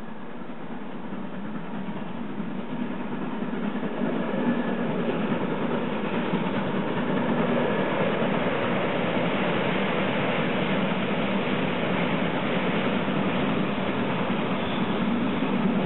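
Steam locomotive hauling a train of passenger coaches as it approaches, its running sound growing louder over the first few seconds and then holding steady.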